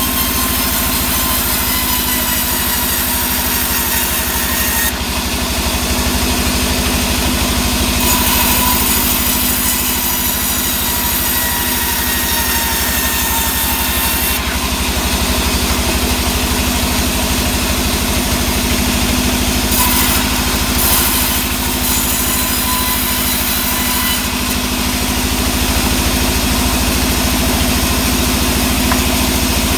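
Band sawmill running steadily and ripping a sengon log lengthwise into boards. The sawing hiss changes level several times as the blade works through the wood.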